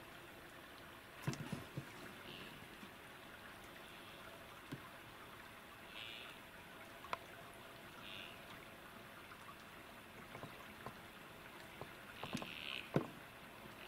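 Faint outdoor quiet with short, high animal calls every few seconds and a few soft knocks and clicks, the loudest just before the end.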